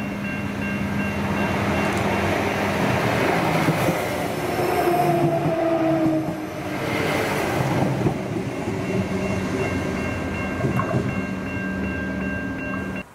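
A 3000 class diesel railcar passing close by at a level crossing: engine and wheels running, with a tone that falls in pitch as it goes past about five seconds in. Level crossing warning bells ring throughout, and the sound cuts off suddenly near the end.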